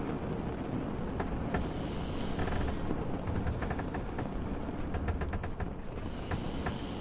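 Rain falling in a soundscape, with scattered drip clicks over a steady low rumble.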